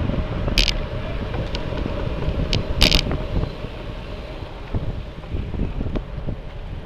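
Wind buffeting the microphone of a camera riding on a road bicycle, over a steady low rumble of road noise, with a faint steady hum. Two sharp clicks cut through, one about half a second in and a stronger one about three seconds in.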